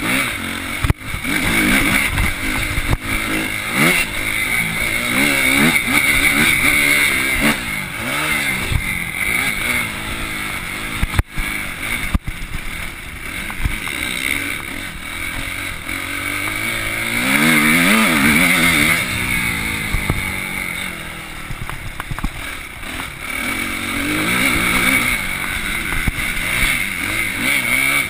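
Suzuki RM-Z250 motocross bike's single-cylinder four-stroke engine, heard from a handlebar-mounted camera while the bike is ridden on a dirt track, revving up and down again and again.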